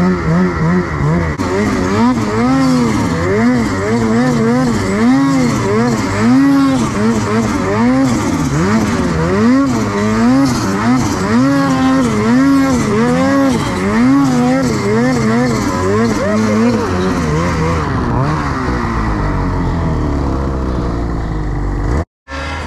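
Turbocharged 850 cc two-stroke snowmobile engine revving up, then rising and falling in pitch roughly once a second as the throttle is worked riding through deep snow. Near the end it settles to a steadier, falling drone before cutting off suddenly.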